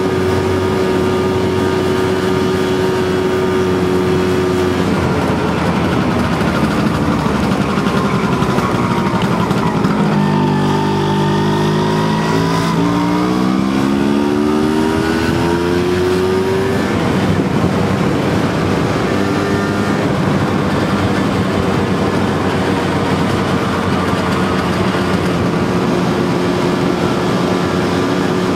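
Vespa scooter engine running steadily as it rides along, heard from onboard. About a third of the way in, the engine note sinks, then climbs steadily for several seconds as the scooter picks up speed again.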